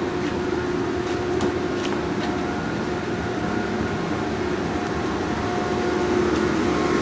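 Steady mechanical hum of a machine shop, with a faint steady tone running through it and a few light ticks.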